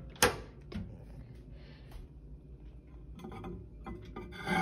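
Microwave oven door latch clicking open with one sharp click about a quarter-second in, followed by faint clicks and handling noises. A louder clatter comes near the end.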